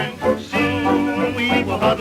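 A 1920s jazz dance band plays a fox trot, heard from a 1926 Brunswick 78 rpm record.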